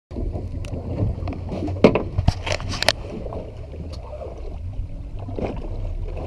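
Wind rumbling on the microphone aboard a small boat at sea, with a quick run of sharp knocks and clicks about two seconds in from gear being handled.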